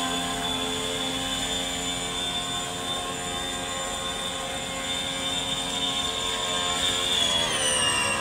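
Radio-controlled model jetski's brushed electric motor and water-jet drive whining at a steady high pitch while running at speed, the pitch dropping a little near the end as it eases off.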